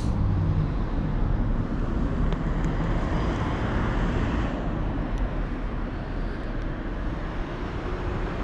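A motor vehicle engine running steadily, easing off slightly in the second half.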